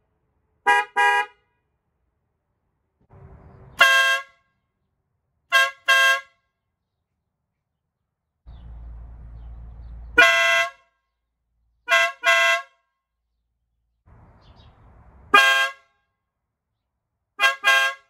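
Toyota Sienna's horns sounded in short honks, each time one honk and then two quick short toots, for three setups: the stock high- and low-frequency horns first, then a Farbin compact air horn paired with the high-frequency stock horn, and near the end the Farbin paired with the low-frequency stock horn.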